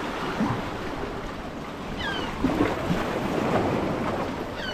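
Sea waves washing, with wind on the microphone: a steady rushing, broken by two short high falling chirps about two seconds in.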